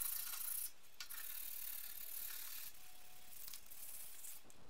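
Body filler being hand-sanded with a sanding block on car bodywork: a high, hissing rasp in repeated back-and-forth strokes, with a short pause about a second in.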